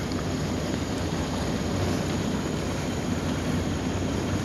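Steady drone of a boat under way: the engine's low hum, with water rushing along the hull and wind buffeting the microphone.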